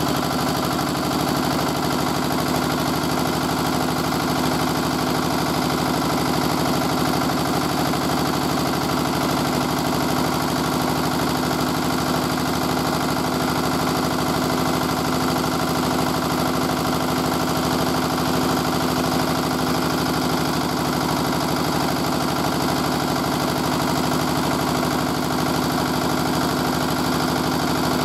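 Petter AVA1 single-cylinder air-cooled diesel engine running steadily at constant speed, belt-driving a Dale Panther 3 kW generator.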